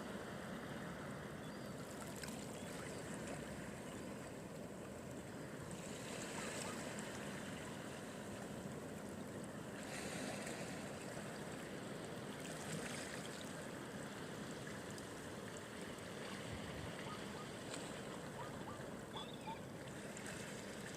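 Sea waves washing onto the shore: a steady rush that swells with each wave, several times over.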